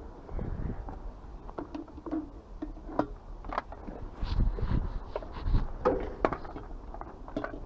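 Scattered clicks, light knocks and low thuds of scrap metal parts being handled and taken apart by hand.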